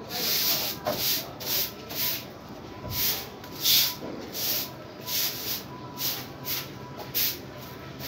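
Budgerigar nestlings in the nest pot giving raspy, hissing begging calls, a quick irregular run of short cheeps about two a second.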